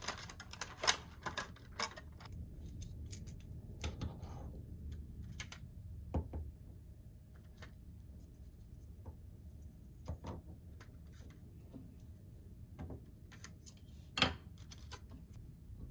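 Small plastic toy pieces and packaging being handled: irregular clicks and taps with a brief rustle about four seconds in, and the loudest tap near the end.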